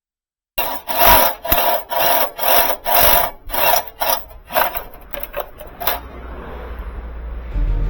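Hand filing, with rasping back-and-forth strokes about two a second on a metal part, which fade out and stop about six seconds in. Music starts near the end.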